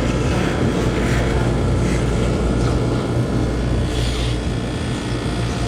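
Ice cream freezer case's refrigeration unit running: the condenser fan blowing steadily through the freshly cleaned condenser coil over a constant low hum.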